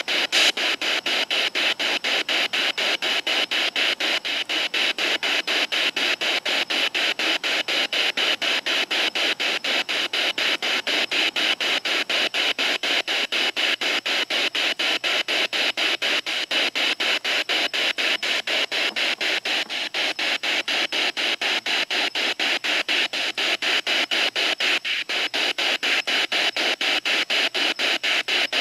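Radio static chopped into rapid, even bursts several times a second, from a spirit box sweeping through radio stations while it is listened to for spirit voices.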